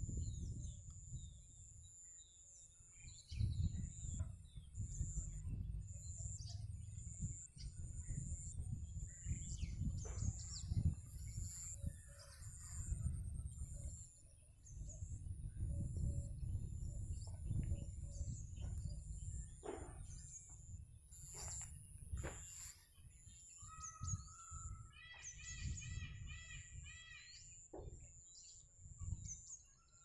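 Birds calling at a reedy pond: a thin, high note repeated about every half second, and near the end another bird's rapid, patterned chattering call. Underneath is a low rumble of wind on the microphone.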